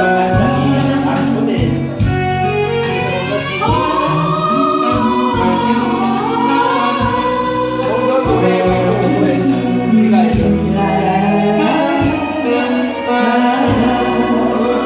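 Music: a Korean ballad backing track with a gliding melody line over a steady bass and beat, with the sound of singing.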